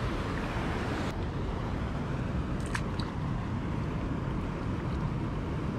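Wind buffeting the microphone, a steady low rumble. A higher hiss cuts off about a second in, and there are a few faint clicks near the middle.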